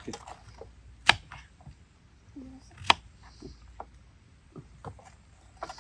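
Two sharp clicks or knocks about two seconds apart, among faint handling ticks and rustles.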